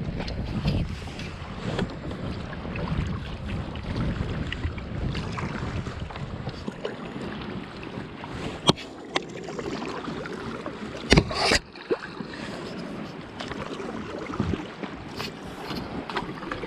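Water lapping and sloshing against a plastic sit-on-top kayak hull, with wind buffeting the microphone. A few sharp knocks come about 9 and 11 seconds in as the aluminium kayak paddle is handled against the boat.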